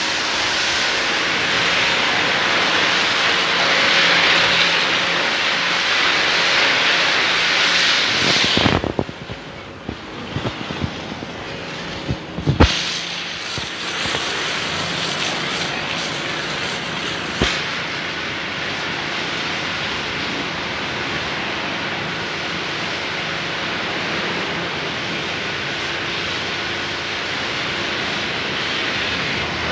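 Car-wash foam sprayer hissing steadily as it blasts soap foam onto an SUV, with a steady machine hum underneath. The hiss drops away for a few seconds around the middle, where there are a few knocks and one sharp click, then carries on more evenly.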